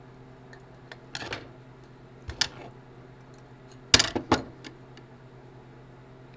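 Small metal clarinet keys and pivot rods clicking and clinking as they are worked off the upper joint and set down. A few scattered sharp clicks, the loudest cluster about four seconds in.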